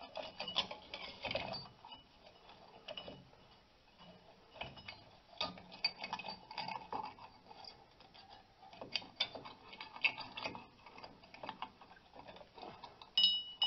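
Drum brake shoes, springs and self-adjuster hardware clinking and rattling against the steel backing plate as they are worked loose by hand: irregular metal clicks and knocks, with a short metallic ring near the end.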